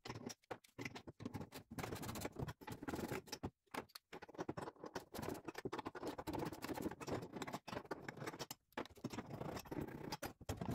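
Gloved hands handling tools and steel parts on the bare floor pan of a stripped car shell: irregular light clinks, taps and rattles of metal on metal.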